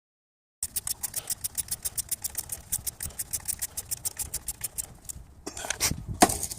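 Ratchet wrench clicking rapidly and evenly, about eight clicks a second, for about four seconds, followed by a few louder metal knocks near the end.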